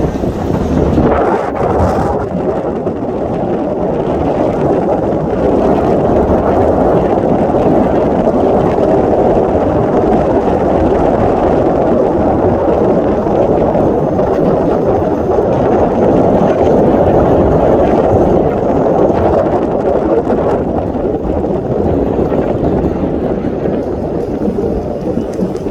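Steady rush of wind over the microphone together with the rumble of a boat under way on the river.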